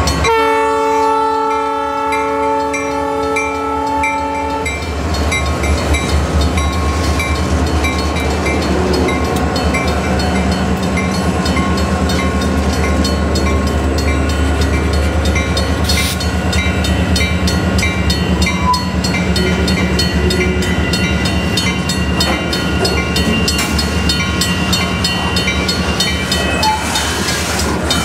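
Diesel freight locomotive horn sounding a chord as the locomotives pass, its pitch dropping slightly at first, ending about four and a half seconds in. Then the freight cars rolling by: steady wheel-on-rail noise with quick, even clicking.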